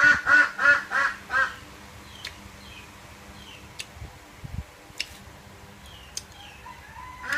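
Duck quacking in a quick run of about five calls at the start, with another run starting near the end. In between there are faint chirps and a few sharp clicks.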